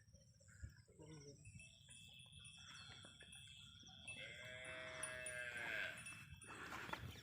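A farm animal's drawn-out call lasting about two seconds, starting a little after four seconds in, over faint high chirping and a thin steady high tone.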